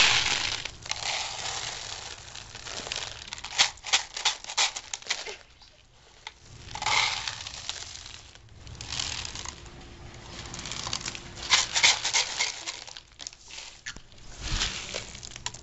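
Dried beans rattling and rustling as hands scoop and stir them in a plastic tub and pour them from a small cup, in uneven bursts with short pauses.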